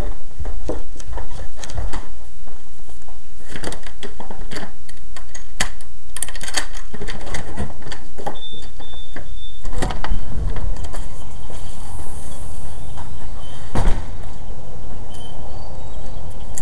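Handling noise of a handheld camera being carried: a string of clicks, knocks and rustles, changing about ten seconds in to a steadier rushing noise, with one sharp knock a few seconds before the end.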